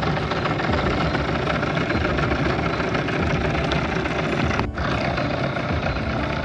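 Small dinghy outboard motor running steadily, with a brief dropout about two-thirds of the way through.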